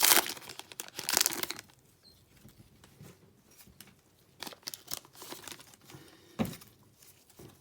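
A trading-card pack's wrapper being torn open and crinkled, loud for the first second and a half. Then quieter rustling and light clicks as the cards are handled, with one sharper tick near the end.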